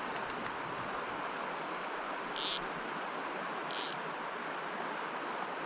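Mountain stream water rushing steadily over rocks, with two short high chirps about a second and a half apart.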